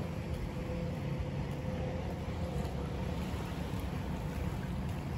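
Beach ambience: wind rumbling on the microphone over small waves washing onto the sand, with a faint steady hum through the first half.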